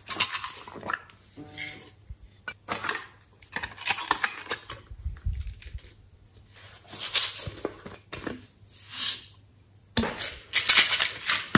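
Glitter and sequins shaken and poured from small plastic containers into a glass dish of slime, in a series of short rattling, sprinkling bursts with quiet gaps between.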